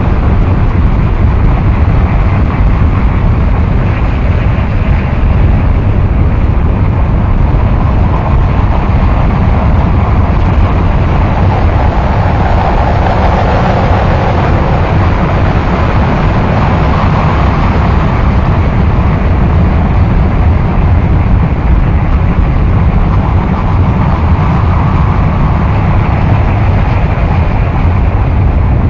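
Loud, unbroken wall of dense noise with a heavy low rumble and no beat, melody or voice: a harsh-noise or drone track.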